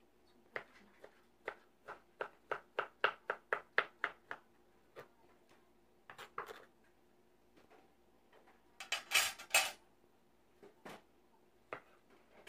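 Kitchen knife chopping cooked banana flower on a plastic cutting board: a quick run of cuts, about three a second, then a few single cuts. Just past the middle comes a short, loud scraping rustle, followed by a few light knocks.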